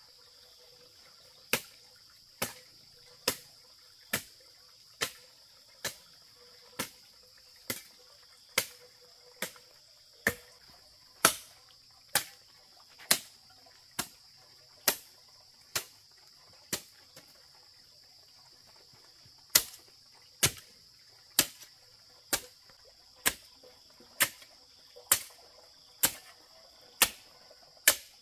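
Sharp, evenly spaced strikes of a hand tool, about one a second, with a pause of about three seconds a little past the middle; a steady high-pitched drone runs underneath.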